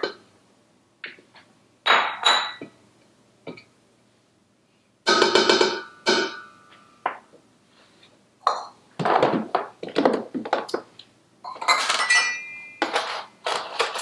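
Kitchen utensils and dishes clinking and clattering in a series of separate knocks and rattles, the loudest about five seconds in, some ringing briefly. Near the end a metal measuring cup clinks and scrapes as it scoops in a container of honey granules.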